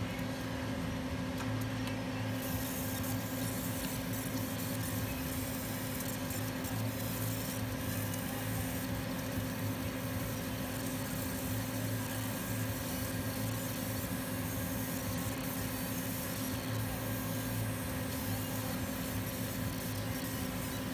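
A 60 W fiber laser engraving a painted steel sledgehammer head: a steady hiss from the beam scanning and burning the surface over the machine's constant hum. The hiss grows brighter about two seconds in and stays on.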